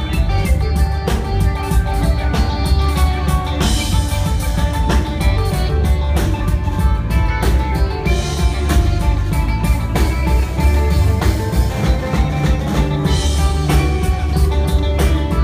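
Live rock band playing loudly: electric guitars over a drum kit with a heavy, booming low end and steady drum hits.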